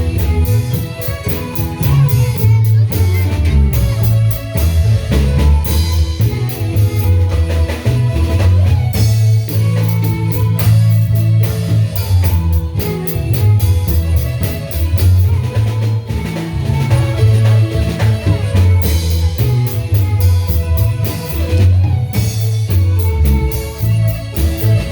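A marimba band playing, with bass and drum kit keeping a steady beat under the quick, struck marimba notes.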